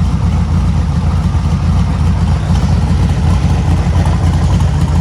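1972 VW Super Beetle's air-cooled flat-four engine idling steadily with a lumpy, bouncing idle from its cam. The owner takes the rough running as a sign that the spark plugs need cleaning again.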